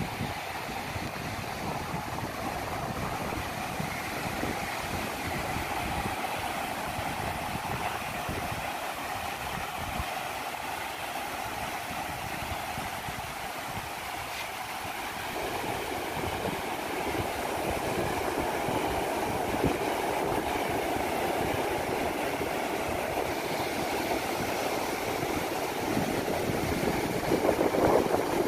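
Steady rush of sea surf breaking on a sandy shore, growing louder about halfway through and again near the end.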